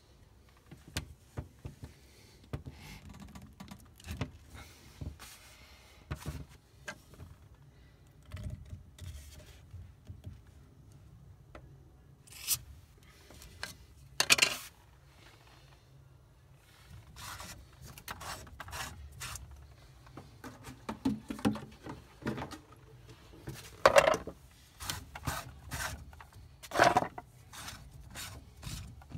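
Scattered clicks, knocks and short scrapes of hands and a tool working on a plastic MagnaClean central heating filter, its bleed screw at the top and then its threaded cap being loosened. A few louder brief rasps stand out near the middle and in the last few seconds.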